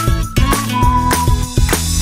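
Background music with a steady beat and a high held melody line that steps down in pitch about halfway through.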